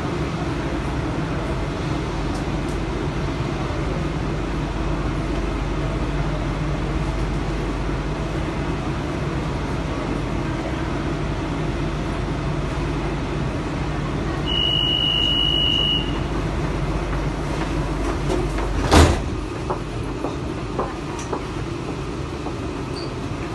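Steady hum of a metro train car standing at a platform. About two-thirds of the way in, a steady high-pitched door-warning tone sounds for about a second and a half. A few seconds later the sliding doors shut with a loud thud, followed by a few small clicks.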